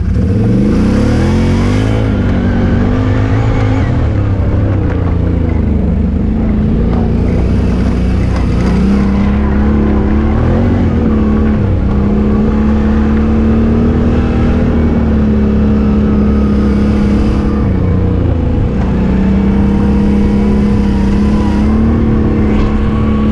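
Can-Am Renegade 800X ATV's V-twin engine running hard under throttle. Its pitch climbs over the first couple of seconds, then mostly holds steady, dropping briefly twice. A rushing hiss comes and goes over the engine.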